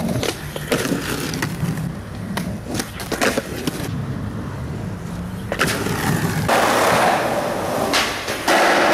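Skateboard on concrete: wheels rolling with scattered clacks and knocks of the board, then from about five and a half seconds a louder, steady rolling rush of wheels.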